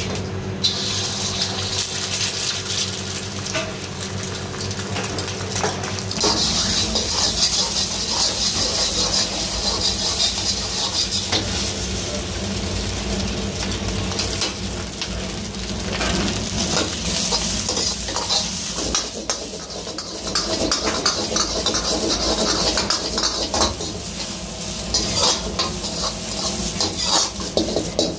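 Egg frying in hot oil in a wok, sizzling, while a steel ladle stirs and scrapes, clanking against the wok. The sizzle grows much louder about six seconds in.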